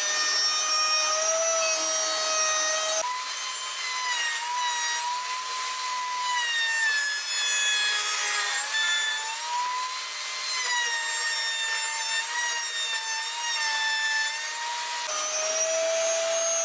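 Router in a homemade router table running with a steady high whine while a round-over (corner-rounding) bit cuts the corners of a long square wooden strip, with a rasping cutting hiss. The whine wavers slightly and shifts in pitch about three seconds in and again near the end.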